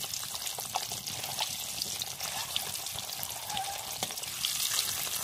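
Whole peeled boiled eggs frying in hot oil in a karahi: a steady sizzling hiss with frequent small crackles and pops of the spitting oil.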